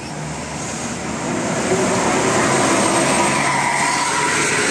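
A bus passing close by: its engine and tyre noise swell over the first two seconds and then stay loud.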